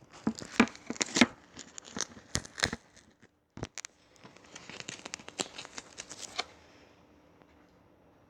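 Slime being pressed and squeezed by hand, making irregular crackling and popping clicks that stop about six and a half seconds in.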